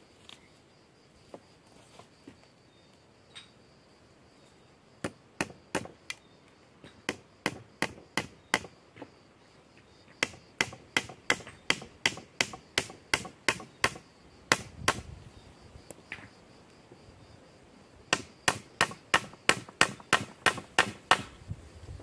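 A small hammer striking the top of a wooden stake to drive it into the ground: three runs of sharp knocks, about two to three a second, with short pauses between the runs.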